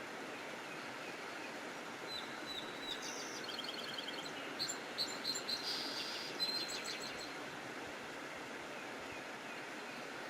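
Songbirds chirping and trilling in the early-morning dawn chorus, with a cluster of short, quick high calls between about two and seven seconds in, over a steady background hiss.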